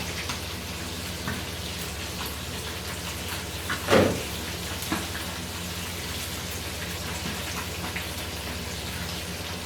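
Fish frying in hot oil in a pan, a steady sizzle with fine crackling and spatter. A single knock about four seconds in and a faint click just after.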